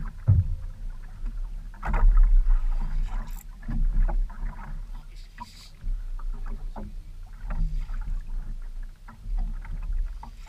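Small outrigger canoe on open water, with irregular knocks and thumps on the boat and its outrigger over a steady low rumble, as an angler pumps and reels against a hooked fish. The heaviest thumps come about two and four seconds in.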